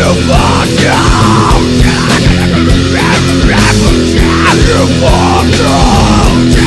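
Loud heavy rock music: distorted electric guitar, bass and drums playing a driving beat, with a bending lead line over the top.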